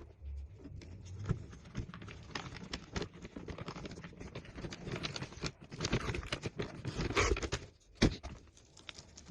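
Cured silicone mold being pried up and peeled away from the modelling clay and the rivets it was cast on: a run of irregular crackling, peeling and light knocks, with one sharp knock about eight seconds in.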